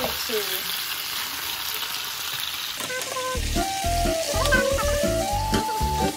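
Chicken pieces sizzling as they sear in oil in a frying pan. About three seconds in, background music with a steady beat comes in and takes over.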